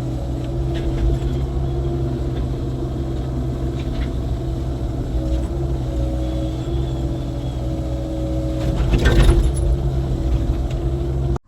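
Excavator's diesel engine running steadily, with a few sharp clanks and a louder burst of scraping noise about nine seconds in.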